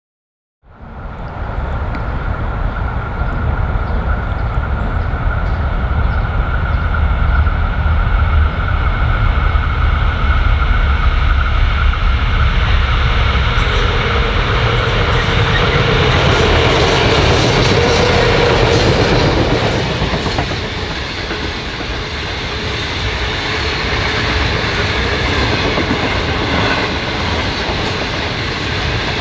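A freight train of three Pacific National 81 class diesel-electric locomotives hauling empty grain hopper wagons, the locomotives' engines running as they approach and pass. The locomotives are loudest about halfway through. After that the lighter, rapid clickety-clack of the hopper wagons' wheels over the rail joints follows.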